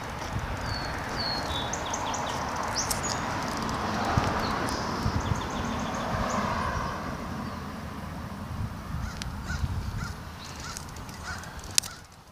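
Wind rushing over a handheld phone microphone and bicycle tyres rolling on an asphalt trail, a steady noisy rumble. A few short high-pitched chirps sound about a second in and again around five seconds in, and the noise drops away near the end.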